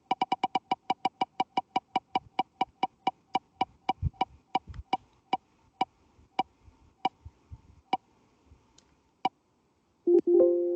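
Computer prize-wheel spinner sound effect: fast clicking ticks that slow down gradually as the wheel coasts to a stop, the last few ticks spread out, then a ringing chime sounds as the wheel lands on its pick.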